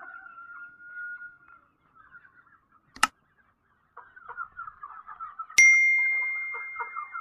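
Chickens clucking and chattering, with a sharp click about three seconds in and, about two seconds later, a loud bell-like ding that rings on and slowly fades: the click and bell sound effects of a subscribe-button overlay.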